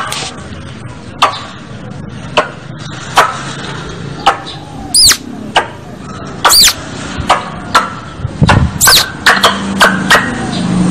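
Squirrel calling: a series of sharp, short chip calls about once a second, coming faster near the end, some of them with a high, arching squeak.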